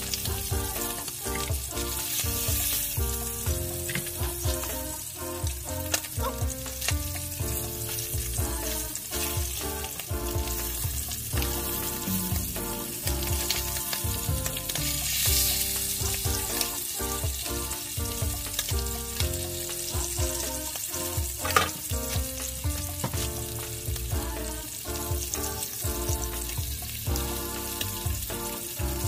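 Fish fillets sizzling as they fry in hot oil in a pan, with scattered clicks and scrapes of a spatula turning them. Background music with a melody plays under the sizzle.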